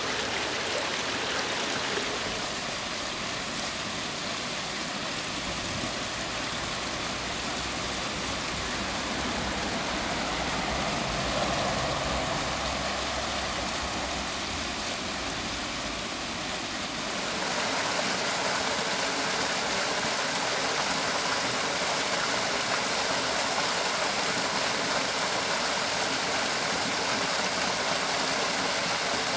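Water of a mountain stream rushing and splashing over rocks and a stone cascade, a steady rush that grows louder and hissier a little past halfway.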